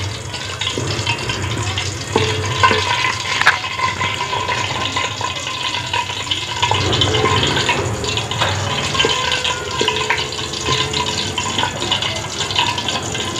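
Wooden spoon stirring in an aluminium pot of warm oil where green cardamom pods are frying, with a light sizzle and scattered clicks and scrapes of the spoon against the pot.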